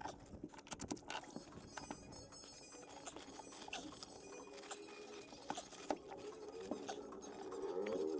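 Quick, irregular clicks and taps, with a faint pitched hum building in the second half.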